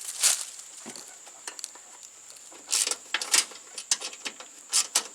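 Hand tools and metal parts of a riding mower's clutch linkage being handled: a few short, sharp scraping and clicking sounds at irregular intervals.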